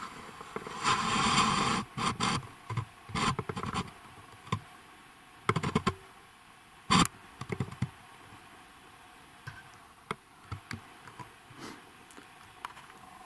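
Footsteps sinking and crunching in deep snow, with clothing rustling, in irregular bursts: dense for the first few seconds, then sparser and softer. One sharp crack about seven seconds in.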